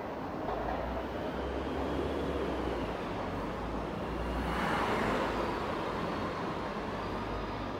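Road traffic noise on a busy multi-lane road: cars passing steadily, with one passing loudest about five seconds in.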